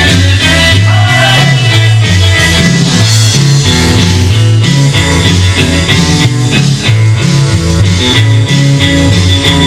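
Recorded rockabilly music: electric guitar over a bass line stepping from note to note in a steady rhythm.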